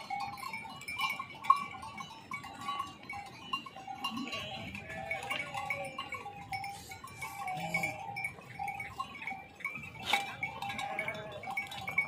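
A large mixed flock of sheep and goats bleating as it moves along a rocky mountain trail, with bells on the animals clinking again and again. There is a single sharp click about ten seconds in.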